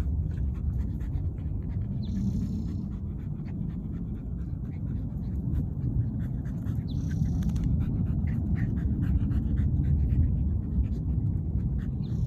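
Dogs panting as an Australian Shepherd and a Miniature Pinscher play-wrestle.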